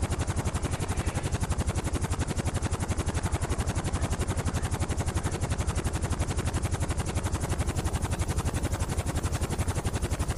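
Helicopter rotor blades beating in a fast, even rhythm.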